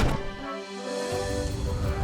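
Background music from the cartoon's score, a run of held notes, with a low bass layer coming in about a second in.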